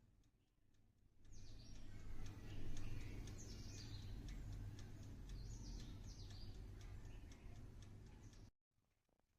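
Birds chirping in short falling calls over a low, steady outdoor rumble, with scattered faint ticks. It starts about a second in and cuts off suddenly near the end.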